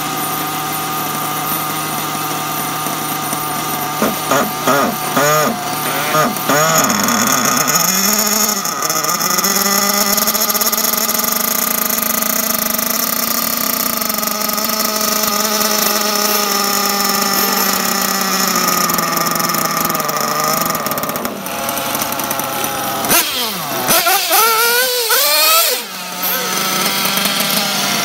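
Small nitro engine of a Kyosho MP10 1/8 RC buggy being warmed up. It runs steadily, climbs to a higher held rev about eight seconds in and stays there for some twelve seconds, then drops back, with a few quick throttle blips near the end.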